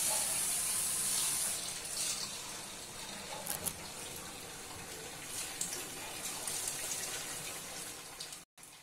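Marinated chicken pieces sizzling steadily as they deep-fry in hot oil in a kadai, with a few brief crackles as more pieces are dropped in.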